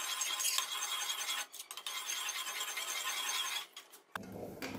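Faint scraping and rubbing of a steel ladle against the bottom of an aluminium karahi while stirring milk, broken twice by short gaps.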